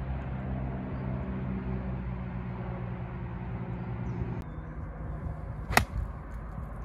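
A motor hums steadily for about four seconds and then stops abruptly. A second or so later comes a single sharp crack of a golf club striking the ball.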